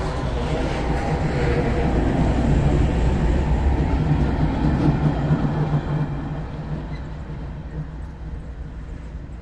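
MRS GE AC44i diesel-electric freight locomotives passing close by, engines running with a steady low drone over the rumble of the train on the rails. The sound is loudest a few seconds in and fades after about six seconds.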